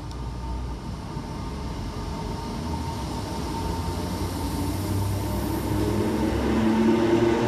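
Class 319 electric multiple unit pulling away from the platform, its running noise growing steadily louder as it gets under way.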